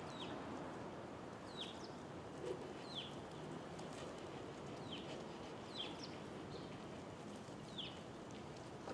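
A small bird's short, high chirps, about six of them at irregular intervals, each a quick downward sweep, over a steady outdoor background hiss.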